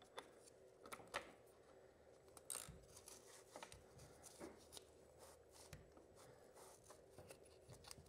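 Near silence with faint, scattered clicks and rubbing from a nylon strap wrench and ratchet being fitted around a motorcycle oil filter by hand.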